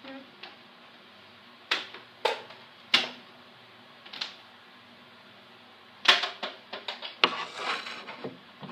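Handling a Hoover WindTunnel upright vacuum to free its power cord: a few separate sharp plastic clicks and knocks, then a quick run of clattering clicks near the end. The vacuum motor is not running.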